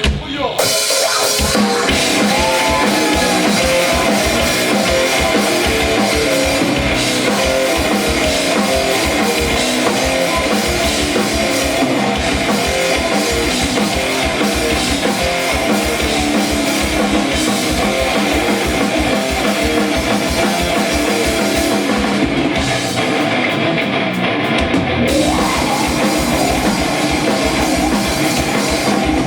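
Live rock band playing loud, fast heavy rock with a pounding drum kit and guitars. The drums and cymbals drop out briefly a little past twenty seconds in, then the full band comes back in.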